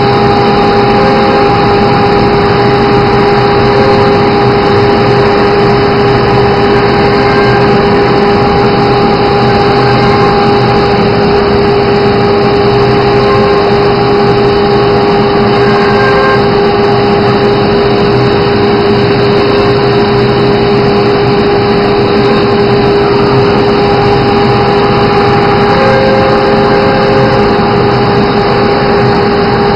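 Automatic tool-change CNC router running: a steady high whine over a constant loud machine noise, unchanging throughout.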